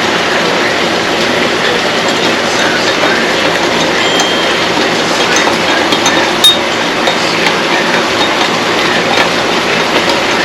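Food sizzling steadily in a hot pan, with a few light clinks of a utensil, the sharpest about six and a half seconds in.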